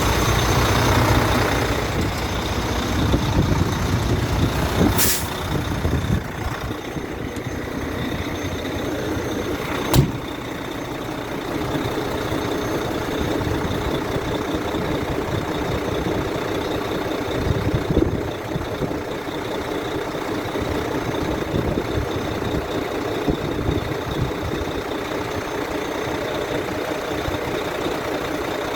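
Truck engine idling steadily, with a few sharp clicks and knocks over it, the loudest about ten seconds in.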